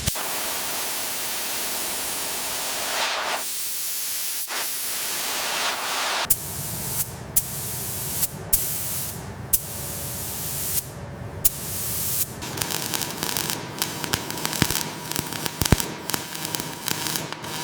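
A loud hissing spray for about six seconds, then a rougher rumbling noise with many scattered sharp clicks and knocks, typical of metal being worked.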